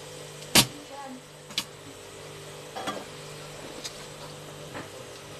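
Spring-loaded desoldering pump firing with a sharp, loud snap about half a second in as it sucks molten solder off a circuit board, followed by a quieter click about a second later and a few faint knocks, over a steady low hum.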